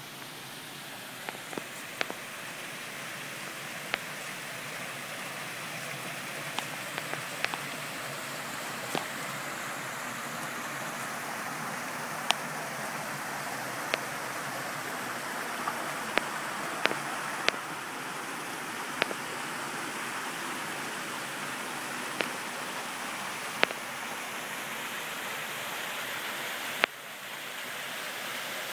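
Water running over a stacked-stone waterfall and through a rock-lined stream: a steady rushing that grows louder over the first several seconds and dips briefly near the end. Scattered sharp clicks sound over it.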